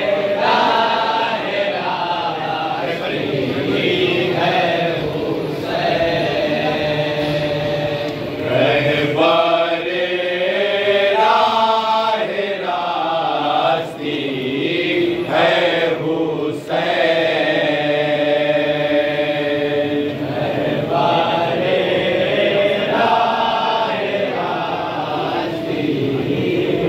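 A group of men chanting a nauha, a Shia lament, with unaccompanied voices in long, wavering sung lines.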